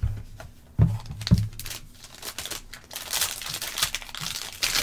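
A cardboard trading-card box handled and opened, with two soft thumps about a second in. Then the foil wrapper of a 2021 Topps Tier One baseball card pack crinkles and tears as it is opened.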